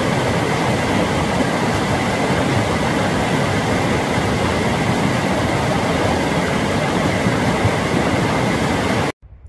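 Loud, steady rushing noise of fast-flowing water, even and unbroken, stopping abruptly near the end.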